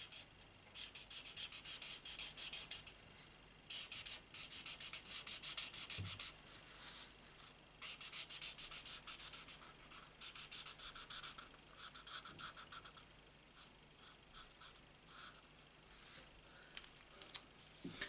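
Stampin' Blends alcohol marker nib scratching across cardstock in quick short strokes while colouring in a stamped image. The strokes come in runs of a second or two with short pauses, getting fainter near the end, with one soft knock about six seconds in.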